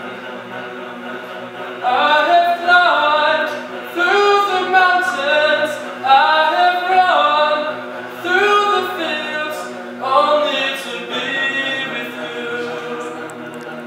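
Mixed high school choir of girls' and boys' voices singing a cappella: it starts softly for about two seconds, then sings louder phrases that swell and fade about every two seconds.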